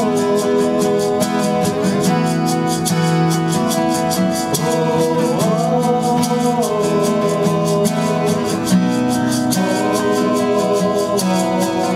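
Acoustic band playing a slow song: acoustic guitars strummed and picked in a steady rhythm, with a male voice singing the melody over them.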